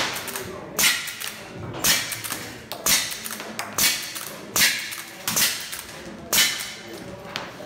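CO2 lever-action rifle firing a string of about eight shots, roughly one a second, at steel plate targets.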